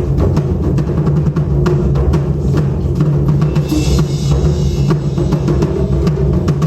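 Taiko drum ensemble playing a dense, continuous pattern of deep drum strokes, with a brief hissy shimmer a little past the middle.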